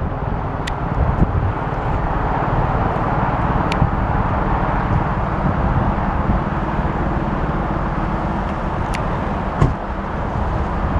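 Eurocopter AS355 Twin Squirrel helicopter running steadily, its turbine and rotor noise carrying a fast, even low pulsing from the blades.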